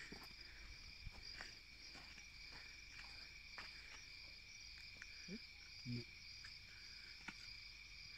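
Faint night-time chorus of crickets: a steady high trill with a second, higher trill that pulses.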